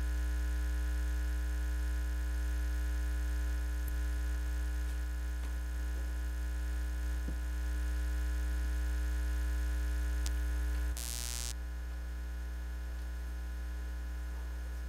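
Steady electrical mains hum with a stack of faint steady overtones. About 11 s in there is a brief hiss, after which the hum goes on slightly quieter.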